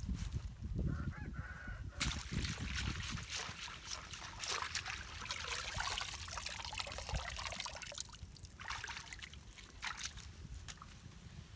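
Muddy water splashing and trickling as a large woven bamboo trap is shifted and pulled out of a water-filled hole, with dull knocks of handling in the first two seconds.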